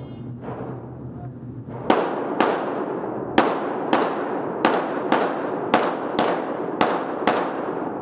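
Ten pistol shots from a 9mm Glock 34, fired as five quick pairs with about half a second between the shots of a pair, starting about two seconds in. Each shot rings on in the echo of an indoor range.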